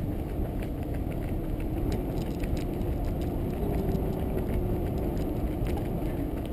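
Wind buffeting the microphone over a steady low rumble, with a faint, nearly steady hum: the road noise of a slow-moving vehicle.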